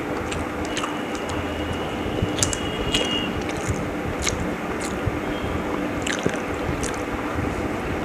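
Wet chewing and squishing sounds of someone eating chicken biryani, with scattered small clicks over a steady background hum.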